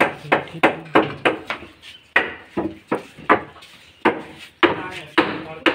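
Hammer blows on wood in a quick run, about three a second, spacing out after the middle.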